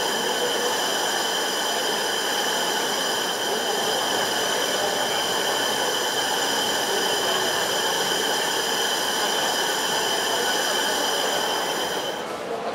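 A bank of 256 IAI RCA-RA4C electric rod actuators moving together, a steady mechanical whine with several high-pitched tones over a hiss, which drops away about twelve seconds in as the actuators stop.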